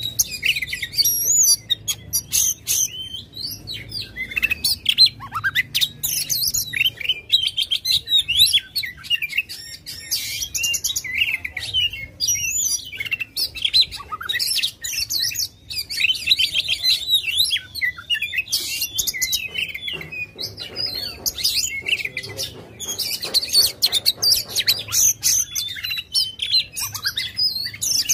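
Oriental magpie-robin (kacer) in aggressive full song: a fast, unbroken string of varied whistles, sharp chirps and rapid buzzy trills.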